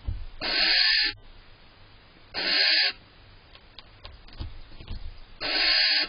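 Barn owl giving harsh hissing calls, about half a second each, three times roughly two seconds apart, with soft knocks between them.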